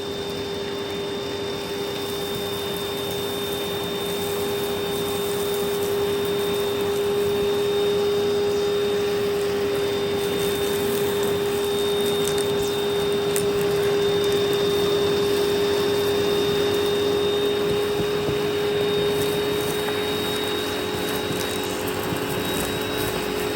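Eureka PowerSpeed vacuum cleaner running steadily through a hose attachment: a constant motor whine over the rush of air. Its suction is weak and it struggles to lift the test mess, which the owner calls weak.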